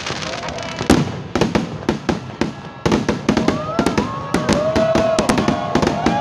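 Fireworks going off: a rapid string of sharp bangs and crackles that grows denser about three seconds in, with whistling tones gliding up and down over them in the second half.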